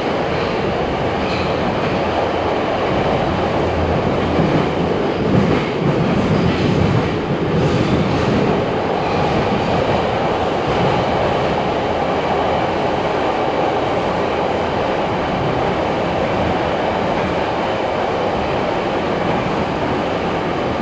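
Moscow metro train running at speed, heard from inside a car: a steady rumble and hiss of wheels on rail and running gear in the tunnel. About four to eight seconds in it gets louder, with a deeper rumble and a few rattling clicks over rail joints.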